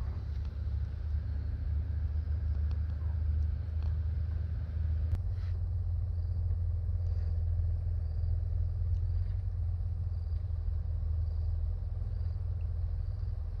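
Wind buffeting the microphone as a steady low rumble. Faint high chirps repeat about once a second through the second half, and there is a single sharp click about five seconds in.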